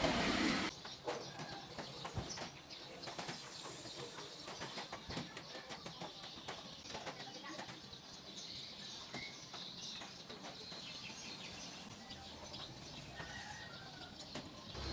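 Irregular rustling with many small clicks and taps from hands handling and working on the parts of a CD player. A louder hissing noise cuts off abruptly just under a second in.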